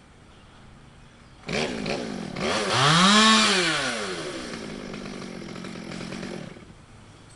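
Chainsaw engine starting suddenly, revving up to a high pitch and falling back, then running lower for a few seconds before it stops near the end.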